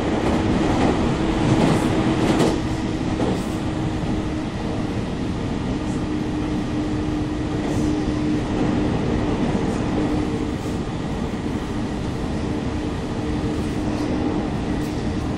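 Running noise inside a JR 313 series electric train at speed: a steady rumble of wheels on rail with a constant low hum. It is louder for the first two seconds or so, then settles.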